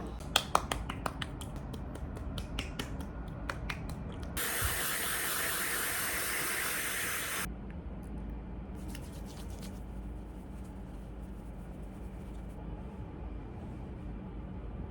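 A quick run of light clicks and taps, then a spray hissing steadily for about three seconds before it cuts off sharply.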